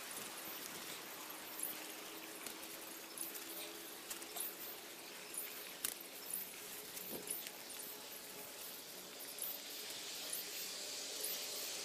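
Faint rustling and scratching of hands digging wild ramps out of damp soil and leaf litter, with scattered small clicks.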